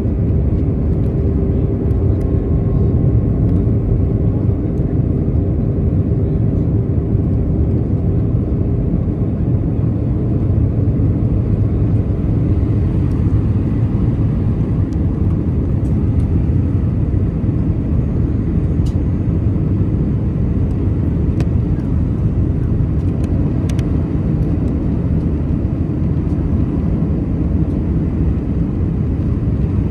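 Airbus A319 cabin noise from a window seat over the wing on the descent to landing: a steady, low rumble of the jet engines and rushing air. A faint hum that is there at first fades out several seconds in.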